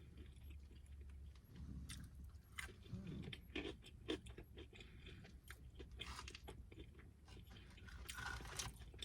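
A person chewing fried fish close to the microphone: faint, irregular wet clicks and small crunches.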